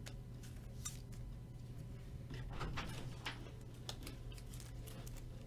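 Trading cards and their plastic sleeves or holders being handled: a scatter of soft clicks and rustles, a few louder ones in the middle, over a steady low hum.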